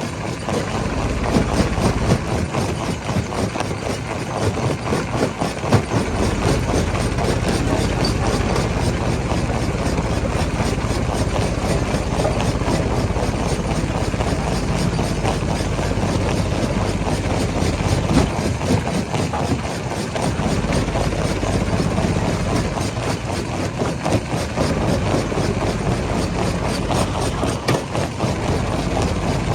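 Rock-crushing machinery running steadily: a heavy engine drone mixed with grinding and clatter, with a few sharper knocks standing out.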